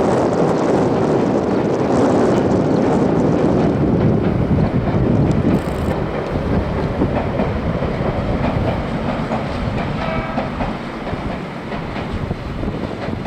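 Ueda Electric Railway Bessho Line train running past on the rails, loudest in the first five seconds and then fading as it moves away. A brief pitched tone sounds about ten seconds in.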